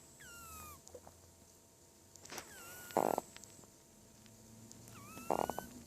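Kitten snoring: three breaths, each carrying a thin whistle that glides in pitch. The two louder ones, about three seconds in and near the end, end in a short rough snore.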